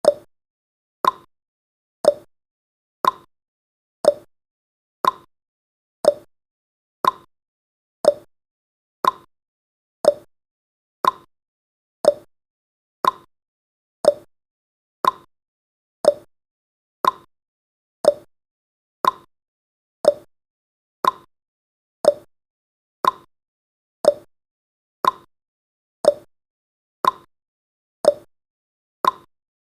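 Countdown timer's ticking sound effect: one short, sharp tick every second, alternating between a higher and a lower tick like a clock's tick-tock.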